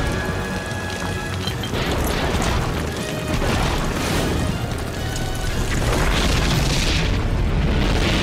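Cartoon explosion sound effect: a sharp blast at the start, then a continuous heavy rumble that swells several times and is loudest near the end, over background music.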